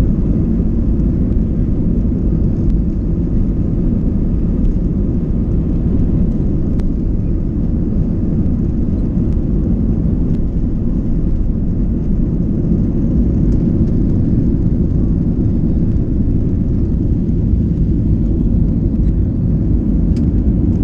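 Aeroplane taking off: a steady, heavy rumble of engines and airflow that holds level throughout, with a few faint clicks.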